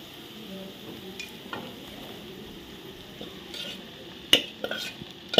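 Diced potato sizzling in ghee in a stainless-steel kadhai while a steel spatula scrapes and stirs it. Near the end, several sharp metal clinks as soaked sago pearls are tipped in from a steel bowl and scraped out with a spoon.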